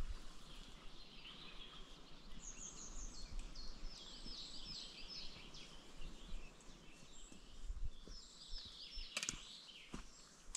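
A small bird singing a rapid series of high, down-slurred chirps, with a sharp knock near the end.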